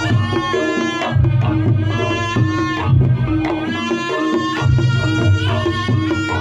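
Reog Ponorogo ensemble music: drums with a wavering, bending melody line over them, and a deep low beat landing about every two seconds.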